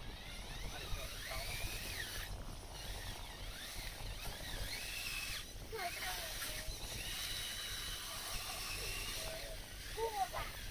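Small electric drive motors of a radio-controlled model Komatsu bulldozer whining, the pitch rising and falling as it moves. A brief voice is heard near the end.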